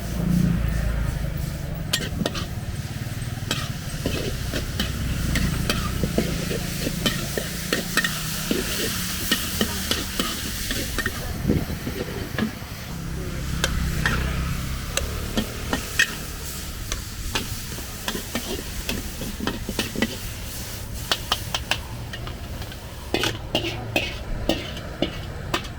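Food sizzling in a hot wok while a metal spatula stirs it, with many sharp scrapes and clanks of the spatula against the wok.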